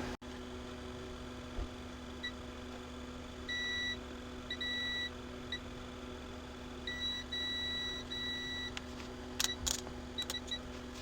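Multimeter continuity tester beeping on and off in irregular short and longer beeps as the probes make and break contact while traces on the board are checked. A steady beep means the probed points are connected. A few light clicks come near the end.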